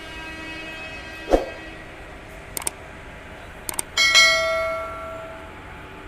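Bell-like metallic strikes: a sharp knock about a second in, a few faint clicks, then a loud ringing strike about four seconds in whose several steady tones fade away over a second and a half.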